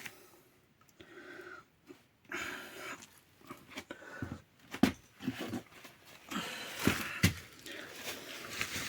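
Aerosol can of fireplace-glass cleaning foam sprayed in several short hisses onto the glass, with a few sharp clicks and knocks from handling the can and door.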